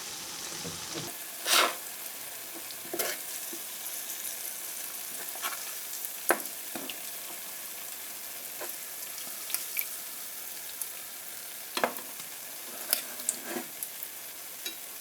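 Batter-coated whole ripe banana deep-frying in hot oil: a steady sizzle with scattered sharp clicks and pops.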